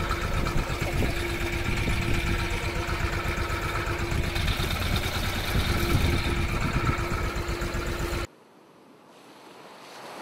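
Small fishing boat's engine running steadily at idle, with wind and water noise, while the gill net is hauled aboard. It cuts off abruptly about 8 seconds in, leaving only a faint swell of noise near the end.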